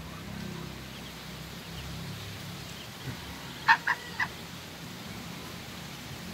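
Three short, sharp squawks from poultry in quick succession about halfway through, over a low steady hum.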